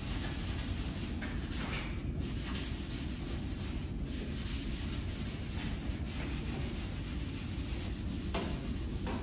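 Hand scuffing of a Chevy C10 pickup's steel bed with a Scotch-Brite pad: continuous rough rubbing strokes over the sheet metal, prepping it so sealer and paint will adhere.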